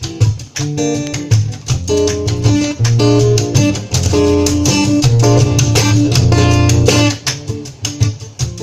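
Guitar music: chords strummed in a fast, steady rhythm over a strong bass line.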